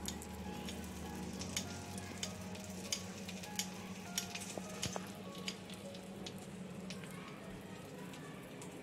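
Butter sizzling in a frying pan around folded chapatis stuffed with cheese, with sharp spitting pops that thin out after about five seconds.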